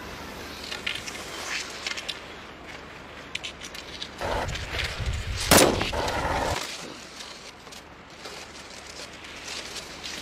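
A single loud, sharp bang about halfway through, inside a low rumble that lasts about two seconds. Faint scattered clicks come before and after it.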